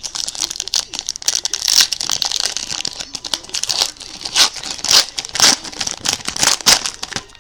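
Crinkling and rustling of trading-card packaging being handled and opened, in quick irregular bursts with sharper crackles every so often.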